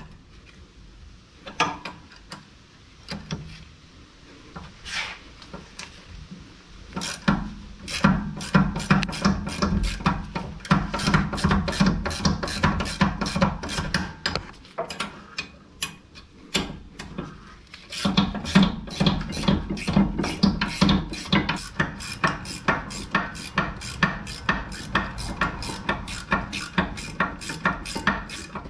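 Rapid, even metallic clicking of a hand ratchet being worked on a fastener during a brake job. It eases off for a few seconds in the middle and then resumes.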